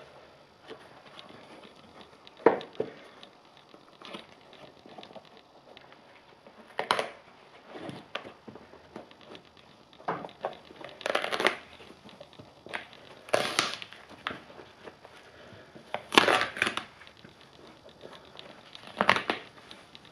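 Adidas Honey high-top sneaker being ripped apart by hand: a series of short tearing and crunching sounds as the fabric upper, lining and sole are pulled apart, about eight rips with pauses between them.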